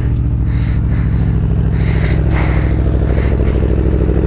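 Motorcycle engine idling steadily while the bike stands parked.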